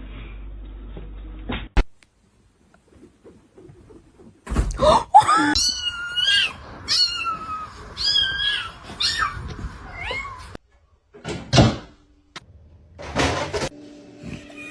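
A cat meowing over and over: a string of about seven drawn-out meows, each bending up and down in pitch.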